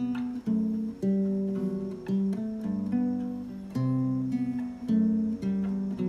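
Solo acoustic guitar in standard tuning playing the instrumental intro of an indie-folk song, recorded as a phone voice memo. Chords are struck in a steady rhythm, a new chord about every half second to second.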